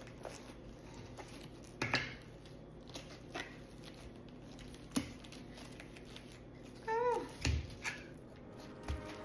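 Knife cutting into a head of cabbage: a few scattered crunches and knocks on the board. About seven seconds in, a short voice-like sound slides down and back up in pitch.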